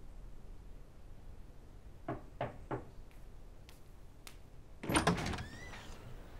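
Three quick knocks on a wooden door. About two seconds later the latch clatters and the panelled door swings open with a short squeak from its hinge.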